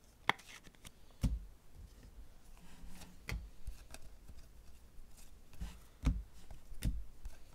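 A stack of football trading cards flipped through by hand, cards sliding off the front of the stack with a soft rub and a handful of scattered taps and clicks, some with a dull thump.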